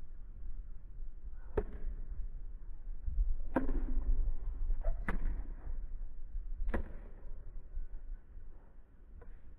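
Pickleball paddles striking the plastic ball in a rally: four sharp hits, each with a short ring, roughly one and a half to two seconds apart, plus a couple of fainter taps, over a steady low rumble.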